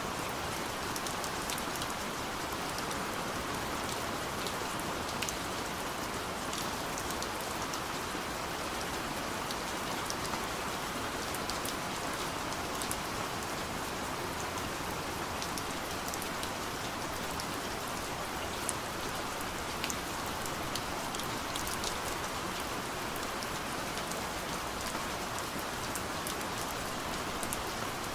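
Soft steady rain falling on a window, an even hiss with many small scattered drop ticks.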